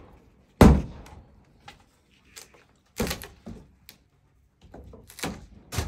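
A series of sharp knocks and thuds. The loudest comes just under a second in, and weaker ones follow around three seconds in and again near the end.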